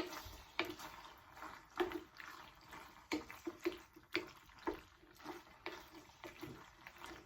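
Pasta being stirred and tossed in a pan of thick vodka sauce loosened with pasta water. It makes short wet squelching strokes, about two a second.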